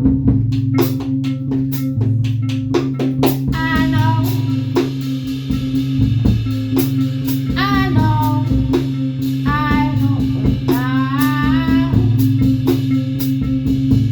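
Live band music with no sung words: a drum kit keeps a steady beat under a repeating bass line, and a lead line plays phrases with bending notes.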